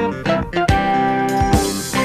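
Instrumental passage of a psychedelic rock song: plucked guitar notes over bass and drums with a steady beat, and a cymbal wash near the end.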